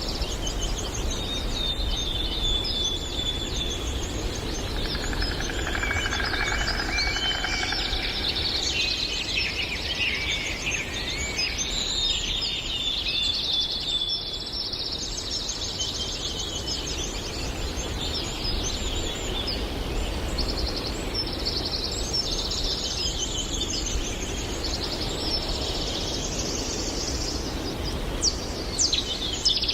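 Several birds singing and calling at once, overlapping chirps and whistled phrases, over a steady low rumble. A fast, dry trill comes in near the end.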